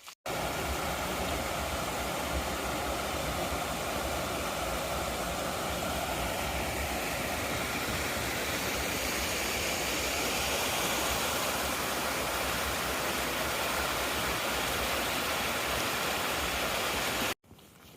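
Steady rush of running water, loud and even throughout, starting and stopping abruptly at hard edits.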